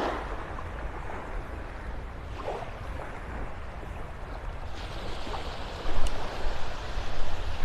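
Gulf surf washing onto a sand beach, with wind rumbling on the microphone; the sound gets louder about six seconds in.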